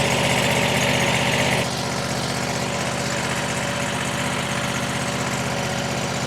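Frontier OS35 portable bandsaw sawmill's gasoline engine idling steadily while it warms up on about a quarter choke after a cold start. A higher whine over the engine stops about two seconds in, and the engine runs on slightly quieter.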